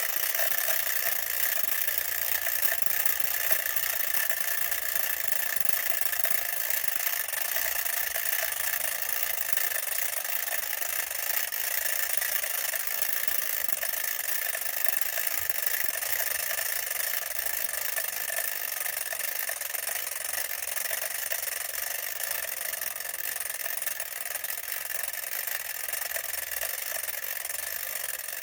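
A small mechanical toy running with a steady whirring rattle, easing off slightly toward the end.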